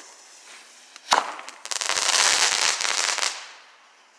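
Firecrackers going off: a single sharp bang about a second in, then a rapid string of crackling pops for about a second and a half that fades out.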